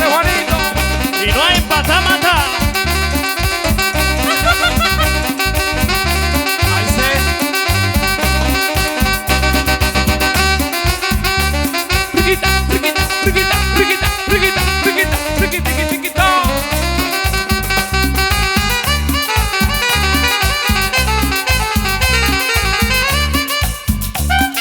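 Instrumental passage of live tropical dance-band music: keyboards and percussion over a steady, repeating bass beat.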